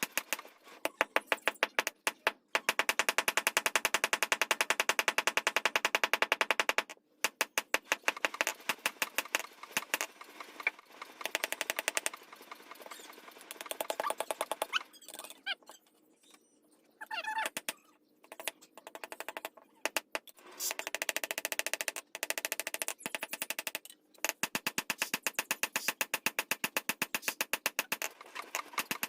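Rapid, regular hammer blows on metal in bursts of several seconds, with short pauses between runs.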